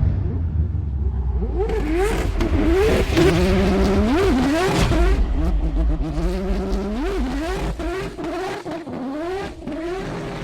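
Rotary engine of a rotary-swapped McLaren P1 drift car revving hard in repeated quick throttle blips, its pitch climbing sharply and falling back a dozen or so times.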